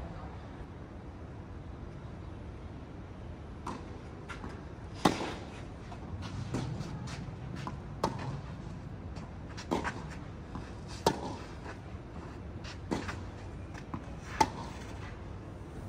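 A racket-and-ball rally: sharp ball strikes and bounces, about one every second and a half to two seconds, beginning about five seconds in, over a steady low background hum.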